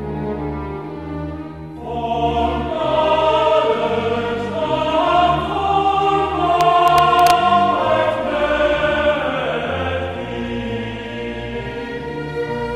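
Background music in a classical style: choir-like singing over orchestra, swelling louder about two seconds in.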